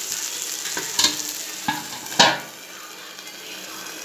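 Bottle gourd dosa batter sizzling in a hot pan on low heat. A few knocks and a loud ringing clink about two seconds in fit a lid being set on the pan, and after that the sizzle is quieter.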